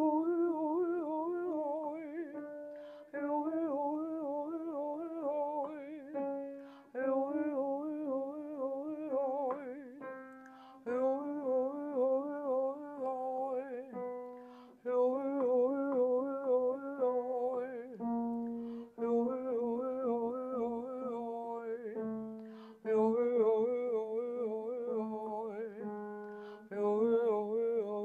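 A woman singing a vocal warm-up exercise on an open vowel, each phrase of wavering notes cued by a few piano notes. The phrases repeat about every four seconds, each a step lower in pitch, working down toward the low notes.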